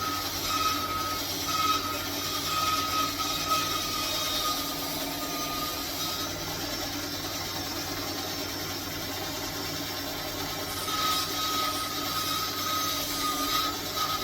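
Small power tool working on wood, its motor tone swelling and easing about once a second as it is pressed and moved over the piece. The tone drops out for a few seconds midway, leaving only the rubbing noise, then comes back.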